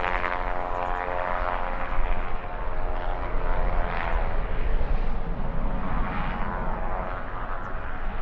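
Twin turbofans of a Pilatus PC-24 business jet climbing out after takeoff: a steady jet roar with a whining set of tones over it, and gusty wind on the microphone adding a low, uneven rumble.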